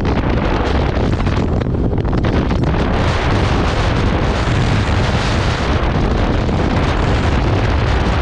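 Heavy wind noise on the microphone of a rider on a Honda ADV 150 scooter at road speed, a steady rumble heaviest in the lows. The hiss grows louder from about three to six seconds in.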